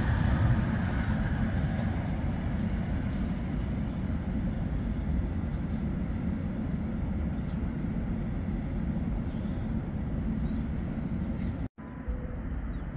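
Steady low rumble of CAF Urbos trams at a tram stop, one standing at the platform and one running away along the track.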